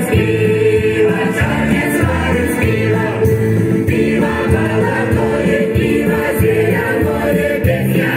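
Folk ensemble singing together in chorus through stage loudspeakers, over a steady musical accompaniment with a repeating bass line.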